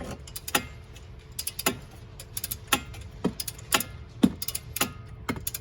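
A ratcheting wrench worked on a brake bolt: sharp pawl clicks, sometimes in pairs, at an uneven one or two a second.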